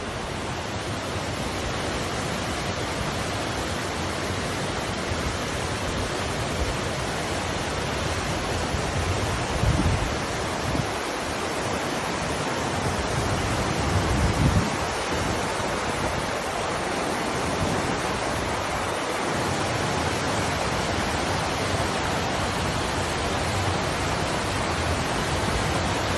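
Steady rush of falling water from a waterfall or mountain stream, even throughout. A few brief low bumps of wind on the microphone come about ten seconds in and again a few seconds later.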